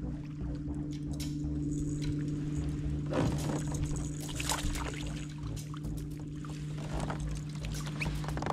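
Water splashing and sloshing as a hooked fish is brought alongside a kayak and scooped into a landing net, busiest from about three seconds in, over a steady low hum.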